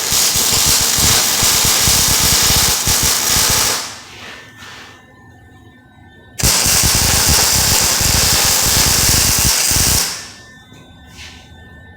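Lincoln MIG welder laying two weld beads on a steel tube, each a steady crackling sizzle that starts and stops abruptly; the first lasts about three and a half seconds, the second starts about six seconds in and runs a little longer.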